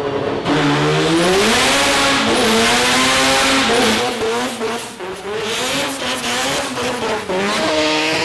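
Mazda rotary engines in drift cars revving hard, the engine note rising and falling repeatedly. Tyres squeal under it as the cars drift.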